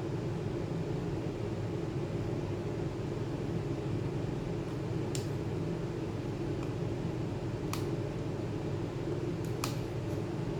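A steady mechanical hum with a few short, sharp clicks in the second half.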